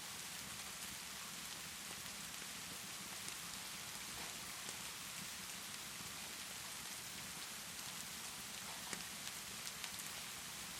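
Steady rainfall mixed with the scattered small pops of a crackling fireplace, one louder pop about nine seconds in.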